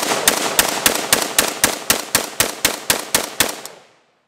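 DPMS Panther Arms Anvil AK-47 rifle fired in a rapid string of about fourteen shots, roughly four a second. The shots stop about three and a half seconds in and the echo dies away.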